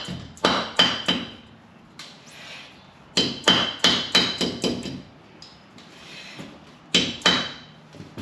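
A hammer tapping a metal dust cap onto a truck's front wheel hub: sharp ringing metal strikes in three quick runs of about four, six and two.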